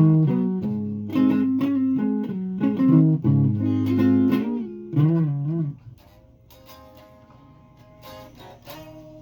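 Guitar played solo, picked notes and chord shapes, with a wavering bent or vibrato note about five seconds in; then the playing drops to a few quiet, sparse notes.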